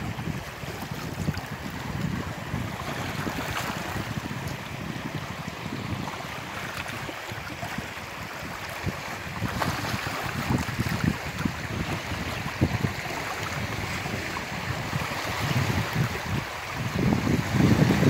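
Small sea waves lapping and washing among boulders at the shoreline, with wind buffeting the microphone in gusts that grow louder near the end.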